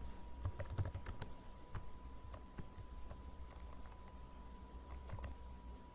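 Computer keyboard typing: irregular key clicks, a quick cluster about half a second to a second in, then scattered taps. A faint steady whine runs underneath.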